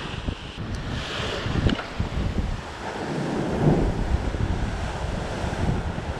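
Sea waves breaking and washing over the rocks below, with wind gusting on the microphone; the wash swells louder a little past the middle.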